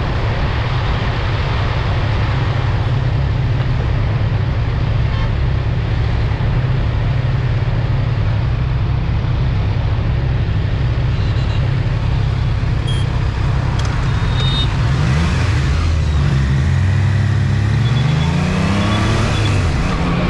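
Motorcycle under way at speed: a steady engine drone under a constant rush of noise, with the engine pitch climbing several times near the end as it accelerates.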